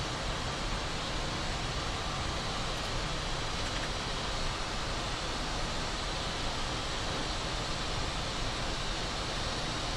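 Steady rushing noise in a Boeing 737 MAX flight deck during the climb, with gear and flaps up: air flowing past the cockpit and the jet running, even and unchanging throughout.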